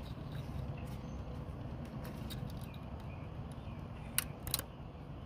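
Small plastic clicks of cutting pliers working at a zip tie on an ignition coil's wiring connector, with two sharp snaps near the end, over a steady low background rumble.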